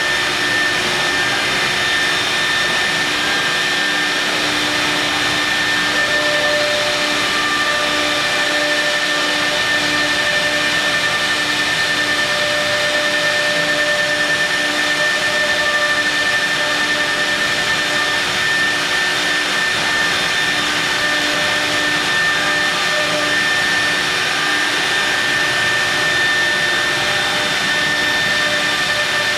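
CNC milling machine machining marble: a steady whine from the running spindle over a dense, even cutting noise, with a few fixed tones that hold throughout.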